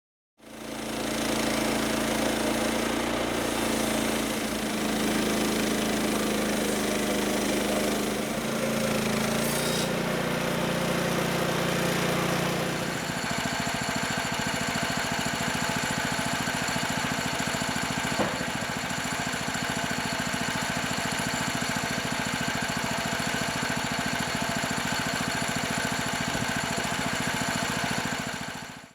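A manual portable bandsaw sawmill running, its engine going steadily. About halfway through, the sound changes to a fast, dense pulsing with high steady whines over it. A single short click comes a little later.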